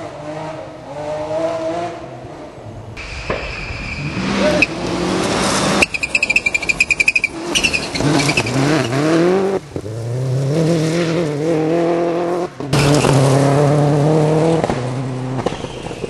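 Rally cars at full throttle on gravel forest stages, engines revving up and dropping through gear changes as they slide past. The sound changes abruptly several times from one car to the next.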